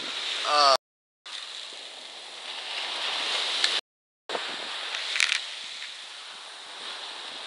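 Ocean surf washing up a sandy beach: a steady rushing hiss mixed with wind on the microphone. It is broken twice by about half a second of total silence.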